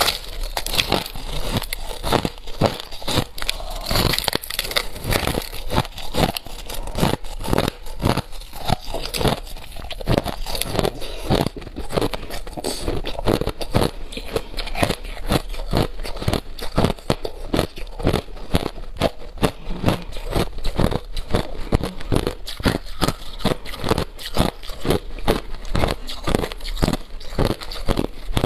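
Crushed ice being bitten and chewed close to the microphone: a rapid, continuous run of crisp crunches, several a second.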